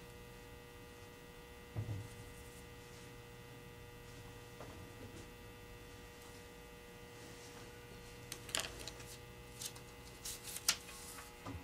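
Steady electrical mains hum with faint room tone, a soft low bump about two seconds in, and a few light taps and clicks near the end as small polymer-clay bread pieces are set down on a cutting mat.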